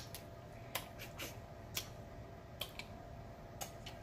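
Snow crab claw shell being cracked and pried open by hand: a handful of separate sharp cracks and clicks.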